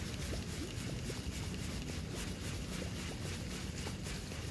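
Steady low rumble of wind on the microphone, with a few faint ticks.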